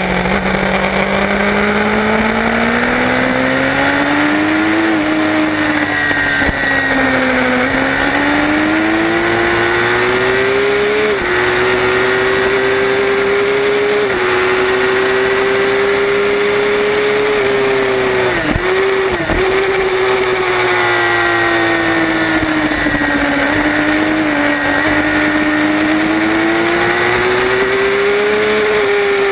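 Racing motorcycle engine at high revs on track, accelerating with the pitch climbing and dropping sharply at each upshift. A sudden brief drop comes about two-thirds through, then the pitch falls as it slows, and it climbs again near the end. Steady wind rush runs underneath.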